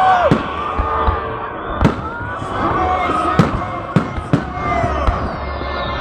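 Fireworks going off: about six sharp bangs at irregular intervals, over a background of music and voices.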